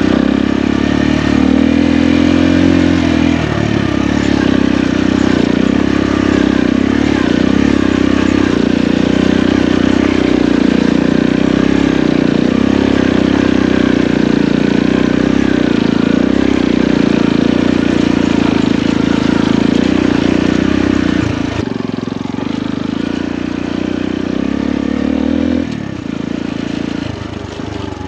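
Motorcycle engine running steadily while riding, easing off twice in the last third of the stretch.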